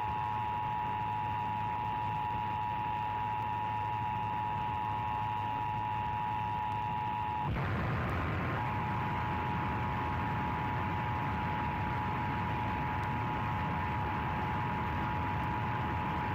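Emergency Alert System attention signal: two steady tones near 1 kHz sounded together, over a low hum. About seven and a half seconds in they break off, and a second later a single steady tone takes over.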